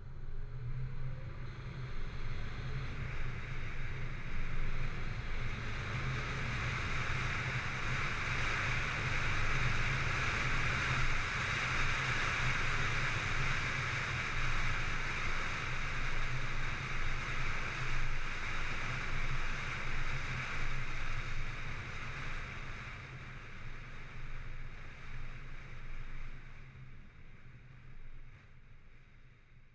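An engine running with a steady low throb under a rushing noise that builds in the middle and then fades away.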